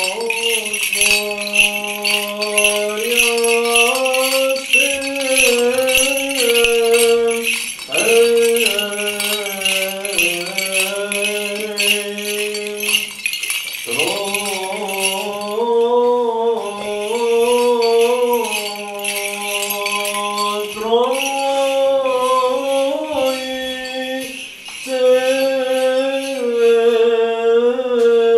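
Orthodox priest's censer swinging, its small bells jingling steadily, over men chanting a liturgical hymn with a held low note under a moving melody. The jingling drops away about halfway, returns, and weakens near the end.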